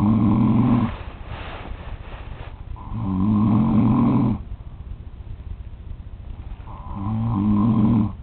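A man snoring heavily in his sleep: three long, low snores about four seconds apart, with a breathy exhale after the first.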